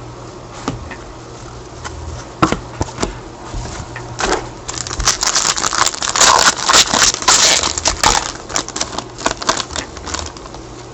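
Trading cards and their packaging being handled: scattered light clicks and card slides, with a few seconds of dense crinkling and rustling in the middle.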